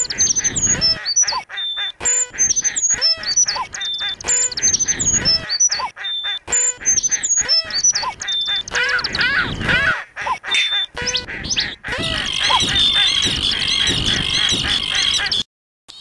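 A soundtrack made from recorded bird calls, chopped and looped into a rhythm: short descending chirps and pitched call notes repeat in a pattern. About three-quarters of the way in it gives way to a dense chorus of many birds calling at once, which cuts off suddenly just before the end.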